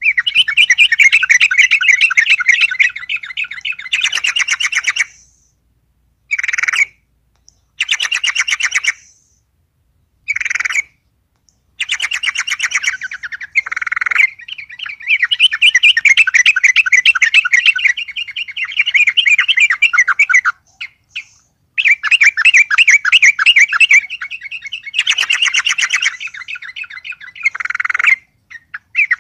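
Yellow-vented bulbul (trucuk) singing in bouts of fast, bubbling, warbling phrases separated by short pauses: the excited, nonstop song of a bird provoked by a rival.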